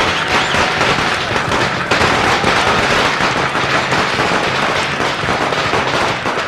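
A string of Chinese firecrackers going off in a dense, continuous crackle of rapid bangs.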